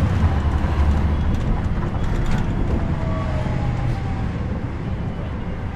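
Caterpillar C13 diesel engine of a NABI 40-SFW transit bus heard from the back seat, running with a steady low drone that eases off slightly. A faint whine falls in pitch around the middle, with a few light rattles about two seconds in.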